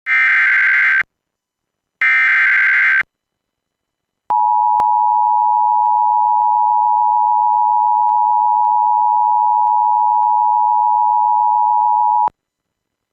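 Emergency Alert System tones: two brief, harsh bursts of digital SAME header data about a second apart, then the EAS two-tone attention signal held steady for about eight seconds before it cuts off, the signal that announces a severe thunderstorm warning.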